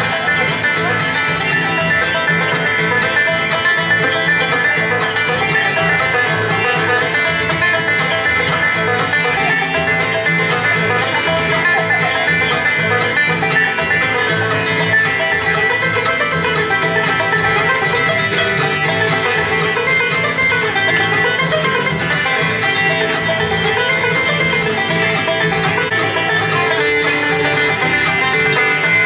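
Bluegrass-style instrumental music, with banjo and guitar playing steadily and no singing.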